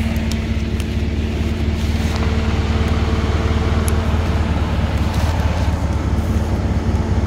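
ATV engine idling steadily, with a few faint clicks over it.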